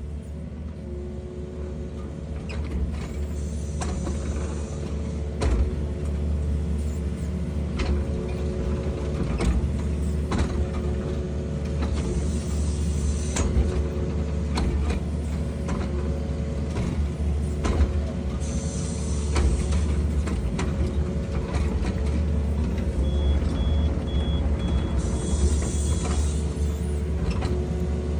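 Excavator diesel engine running steadily under working load, with repeated knocks and creaks from the bucket and boom, and occasional hissing. A short run of high beeps comes in about two-thirds of the way through.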